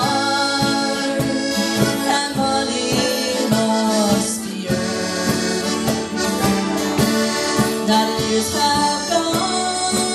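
Live folk band playing an instrumental passage, with an accordion carrying the melody over a strummed twelve-string acoustic guitar and a hand-played cajón beat.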